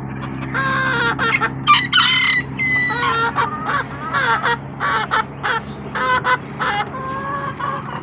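Many birds calling at once, short pitched calls overlapping one another, over a steady low hum.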